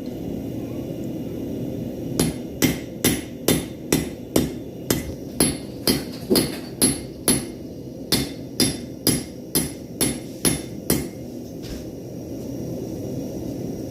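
A 5 lb hammer striking hot steel on a Harbor Freight anvil: about two blows a second, each with a bright ring, in two runs with a short pause between them. A steady low roar of the single-burner propane forge runs underneath.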